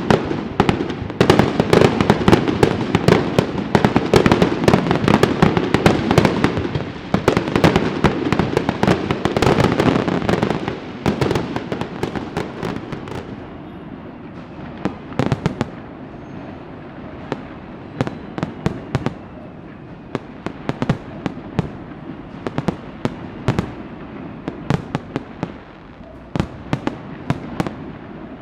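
Firecrackers and fireworks going off: a dense, rapid run of bangs and crackles for roughly the first twelve seconds, then thinning to scattered single pops.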